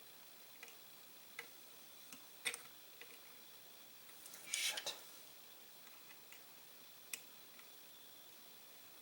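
Faint, scattered metal clicks and taps, with a brief scraping rattle about four and a half seconds in. Hand tools are working at a tight screw on the gun that will not turn.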